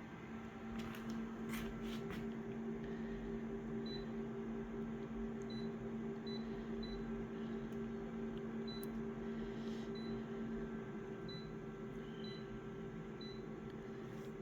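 Photocopier running a copy: a steady machine hum comes up at the start, with a few clicks a second or two in and faint, brief high chirps scattered through. Part of the hum drops out about eleven seconds in.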